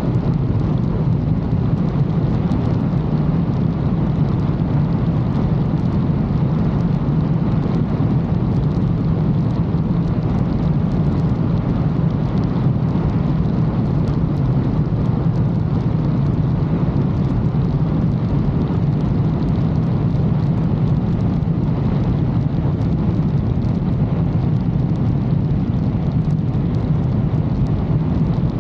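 Motorcycle under way at an even pace: the engine runs steadily under a low rumble of wind noise on the microphone, with no gear changes or let-ups.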